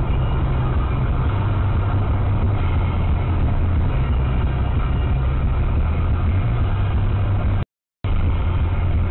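Steady road and engine noise heard from inside a car cruising at motorway speed, around 105 km/h, with a strong low hum. The sound cuts out completely for about a third of a second near the end.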